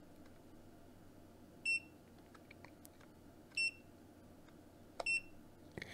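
GVDA GD166B clamp multimeter's buzzer giving three short, high beeps about every second and a half to two seconds while its button is held in to switch on the inrush-current mode. A faint click comes just before the last beep.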